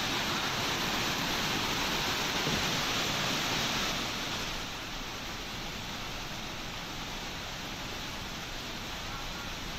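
A river in flood rushing past: a steady wash of water noise, somewhat louder for the first four and a half seconds or so.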